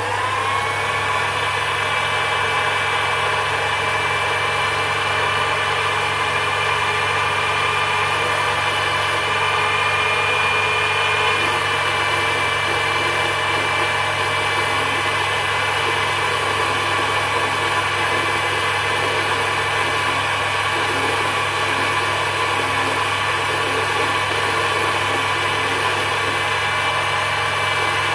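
Sherline miniature lathe's DC motor speeding up right at the start, then running steadily with a whine of several steady tones while a brazed carbide tool is fed along a hard-steel workpiece (about 1080 carbon steel).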